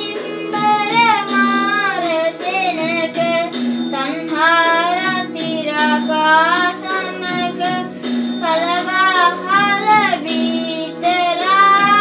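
A child's voice singing a gliding melody over instrumental accompaniment that repeats a low note pattern about every second and a half.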